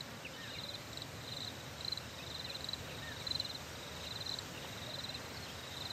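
Faint outdoor nature ambience: an insect trilling in short, evenly repeated high-pitched bursts, with a few thin chirps over a low background hiss.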